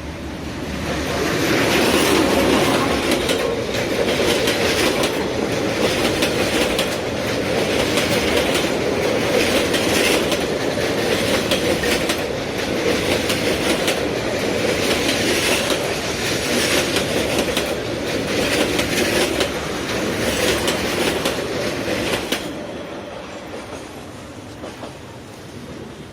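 A train passing, a steady rumble with the wheels clacking over rail joints. It builds over the first two seconds and falls away about 22 seconds in.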